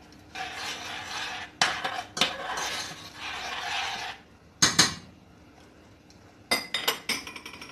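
A metal spoon stirring tomato sauce in a small stainless steel saucepan, scraping round the pan for about four seconds. Then come two sharp taps, and a few ringing metal clinks near the end.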